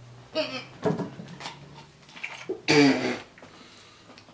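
Two short bursts of laughter and vocal sounds, the louder one near the end, with a few light clicks and knocks between them.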